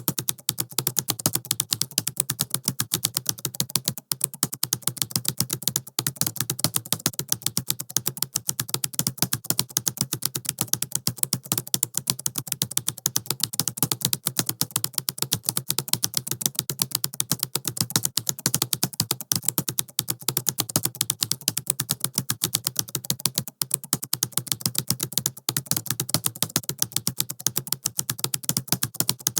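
Fast typing on a laptop keyboard: a dense, continuous run of rapid key clicks, with only a few brief pauses.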